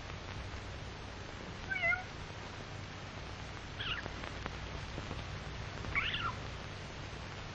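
Kitten mewing three times, short high calls a couple of seconds apart, over the steady hum and hiss of an old film soundtrack.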